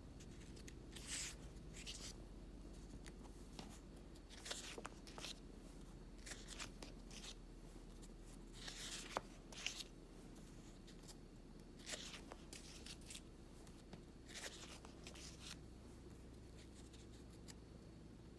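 Faint rustling and sliding of paper sticker sheets being handled and turned over, in short brushes every second or two with a few small clicks.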